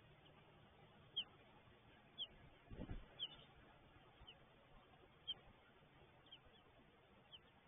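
A bird's short high chirp, repeating about once a second and each one dropping slightly in pitch, over near-silent background. A soft low thump comes about three seconds in.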